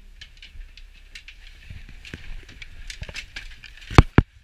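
Handling noise on a camera inside a ski-resort gondola cabin: scattered small clicks and light knocks over the cabin's steady hum. About four seconds in come two loud knocks in quick succession as something presses against the camera.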